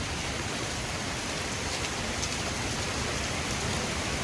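Heavy thunderstorm downpour: a steady, even hiss of rain pouring on pavement and parked cars.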